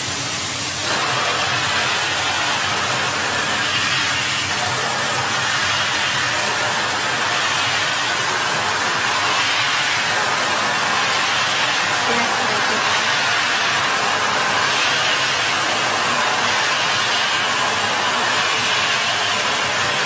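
PET bottle washing machine running, its water jets spraying into upturned bottles with a loud, steady hiss.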